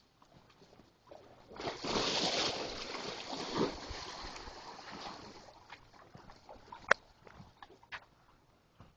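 Sea water washing and splashing around the wooden dock pilings, swelling up about two seconds in and fading away over a few seconds. After it come a few light knocks, likely footsteps on the wooden boardwalk, one sharper knock near the end.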